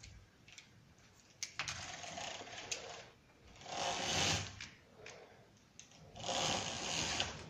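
Window blinds being worked open: the mechanism whirs and rattles in three pulls, each a second or so long, with clicks at their starts.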